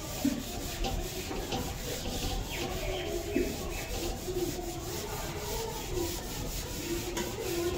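Scratchy rubbing strokes of writing on a board, one short stroke after another.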